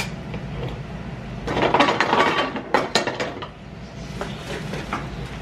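Kitchen clatter of a metal soup can and utensils being handled: a click at the start, a denser stretch of clinking and rattling about two seconds in, then a few sharp clicks.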